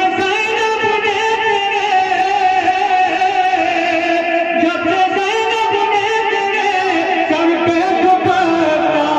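A man singing a naat, an Urdu devotional poem, unaccompanied into a stage microphone, drawing out long wavering melismatic notes without a break.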